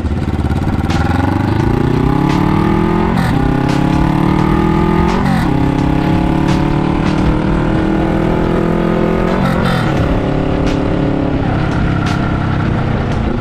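Suzuki GS400 air-cooled parallel twin running through an SP Chara-o suikomi-style exhaust with its silencer fitted, accelerating through the gears. The note climbs, breaks at upshifts about three, five and nine and a half seconds in, climbs again after each, then drops as the throttle eases near the end.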